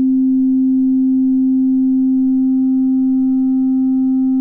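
Steady pure sine-wave test tone played through a tape-saturation plugin with the effect at full, which adds a faint higher harmonic above the main tone.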